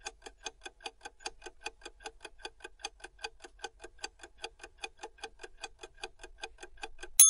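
Clock-ticking countdown timer sound effect, about five ticks a second. It ends in a loud bell-like ding right at the end.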